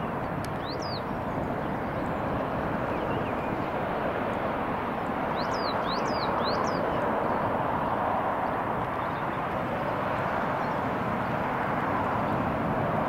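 Jet engines of a Jet2 Boeing 737 running at taxi power, a steady rumbling hiss that slowly grows a little louder. A small bird chirps once about a second in and three times in quick succession about halfway.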